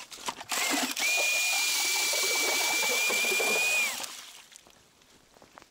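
Cordless drill driving an ice auger through river ice: a steady high motor whine over the crunch of the auger cutting ice, starting about half a second in and stopping about four seconds in.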